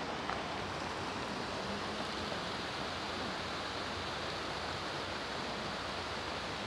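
Steady rush of a small river flowing between snowy banks.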